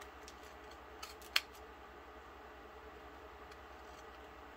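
Scissors snipping off the ends of thin glued-on strips of roofing material: a quick run of small snips, the sharpest about a second and a half in, then a couple of faint snips near the end.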